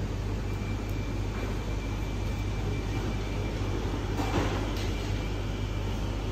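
Steady low rumble of background noise with a low hum, and a brief rustling burst about four seconds in.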